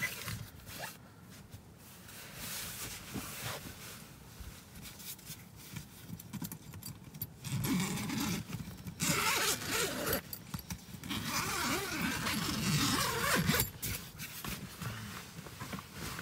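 Zipper on an iKamper Skycamp rooftop tent's door being unzipped in several pulls, loudest over the second half.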